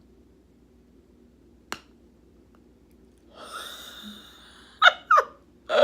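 A woman sniffing a scented candle: a long breathy inhale through the nose, then two short sharp breaths and a loud gasping outburst near the end. She is reacting to a scent strong enough to irritate her.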